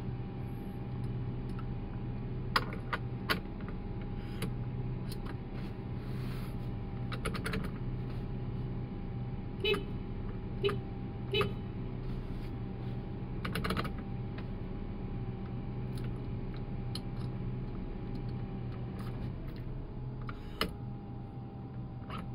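Sharp clicks and clacks of a Greddy KLS+e anti-theft lock cap being seated on, latched into and taken off a Worksbell Rapfix II steering-wheel quick-release hub: two clicks near the start, a quick run of three about ten seconds in, and single clicks later. A steady low hum runs underneath.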